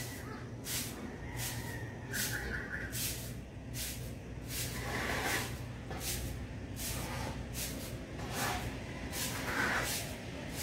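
Footsteps crunching on ash-covered ground, a gritty scrape about one and a half times a second at walking pace.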